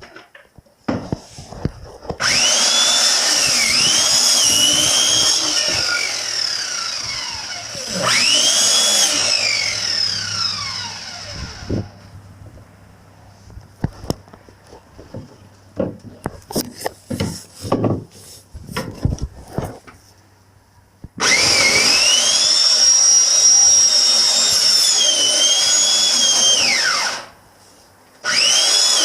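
Handheld electric power tool's motor whining in several long runs, its pitch rising, dipping and sagging as it speeds up and slows under load. Between the runs come scattered clicks and knocks of handling.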